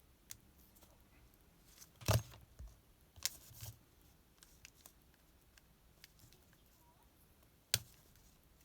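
Small clicks and knocks from handling a Casio F91W watch and a needle tool during a strap change. There is one louder knock about two seconds in, two more around three and a half seconds, and a sharp click near the end.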